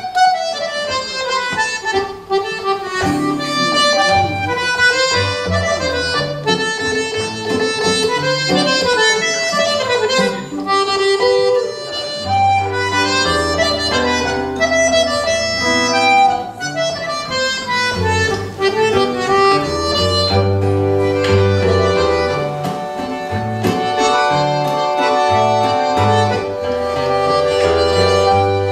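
Small button accordion playing an instrumental tune, with acoustic guitar chords and bass notes underneath.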